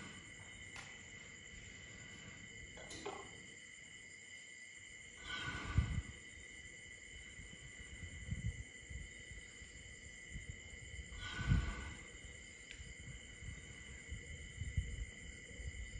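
A sleeping young elephant breathing, a slow breath about every six seconds (twice, about a third and two-thirds of the way in), over a steady chirr of night insects.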